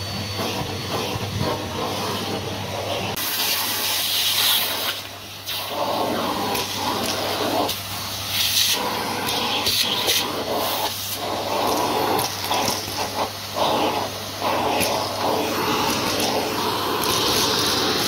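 Numatic Hetty cylinder vacuum running with its crevice tool drawn along carpeted stairs: a steady motor hum under a rushing suction hiss that changes as the nozzle is pressed to and lifted off the carpet, with quick clicks and rattles as small plastic pieces are sucked up the hose.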